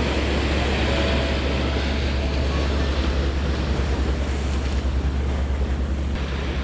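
Wind buffeting the microphone, a steady low rumble, over the wash of sea water.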